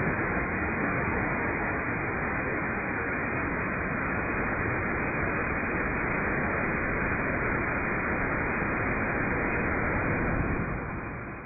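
Homemade solid-fuel rocket motor firing on a static test stand: a steady, loud rush of exhaust noise that fades away near the end as the motor burns out.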